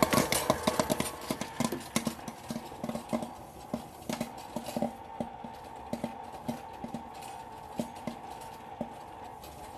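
Popcorn kernels popping in the oil inside a Waring Pro WPM25 300-watt popcorn machine: rapid pops at first that thin out to scattered single pops over the seconds, as the batch nears the end of popping. A faint steady hum runs underneath.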